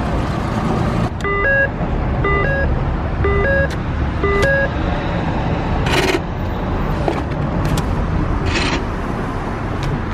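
Car driving, heard from inside the cabin as a steady low road and engine rumble. In the first few seconds an electronic two-note chime sounds four times, about once a second. A few short scuffs and clicks come later.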